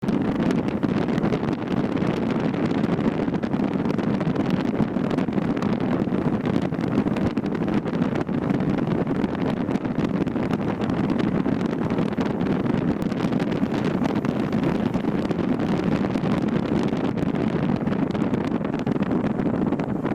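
Steady wind noise rushing over the microphone, even and unbroken.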